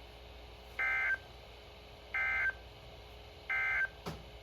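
Emergency Alert System end-of-message signal: three short, identical bursts of warbling digital data tones about a second and a half apart, marking the end of the tornado warning broadcast.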